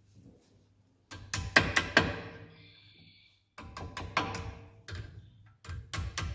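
Small steel-headed hammer tapping a stiff brake-pad retainer spring down into place on a front brake caliper. The sharp metal taps come in three quick runs with short pauses between them.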